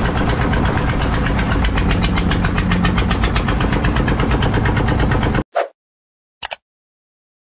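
Fishing boat's engine running steadily with a rapid, even pulse, cut off abruptly about five and a half seconds in. Then two short interface sound effects from a subscribe animation, the second a quick double click.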